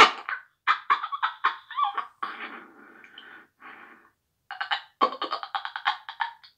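Small wind instrument cupped in the hand and blown at the mouth, played in quick short tooted notes, with a softer breathy stretch in the middle before the quick notes resume.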